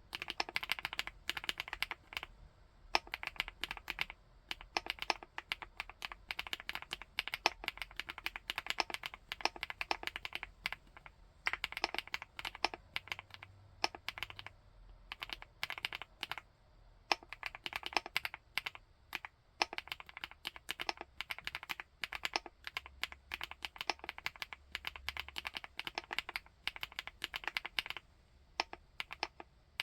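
Typing on a 75%-layout full-aluminium keyboard: a fast run of keystroke clacks with a few brief pauses.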